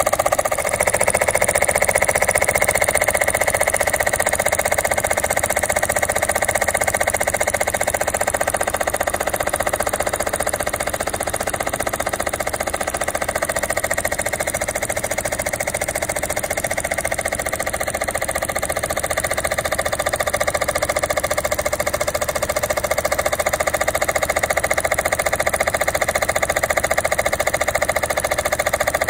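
Ernst Plank Viaduct toy steam engine running on compressed air, its small engine chuffing in a fast, steady patter as the flywheel spins. This is its first air test after restoration. It goes a little quieter in the middle, then picks up again.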